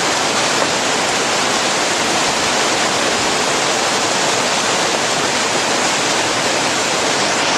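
Small mountain-stream waterfall cascading over boulders, a steady, even rush of falling and splashing water close to the microphone.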